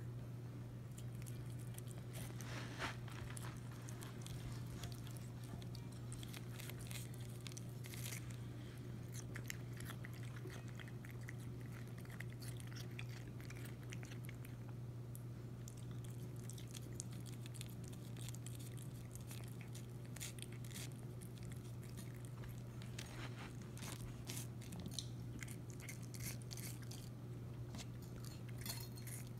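Siamese cat chewing and biting pieces of watermelon, making irregular runs of small wet clicks, over a steady low hum.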